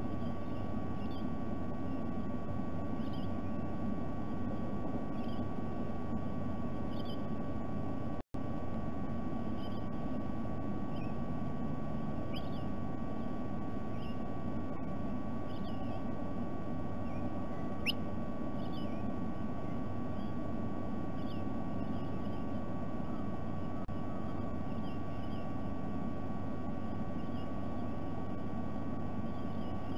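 Steady low rumble and electrical hum from an outdoor nest-camera microphone, with short high bird chirps scattered throughout. The sound cuts out for an instant about eight seconds in.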